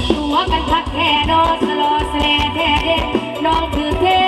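Live mor lam band music played loud through a PA: a woman sings a sliding, ornamented melody over a steady drum beat.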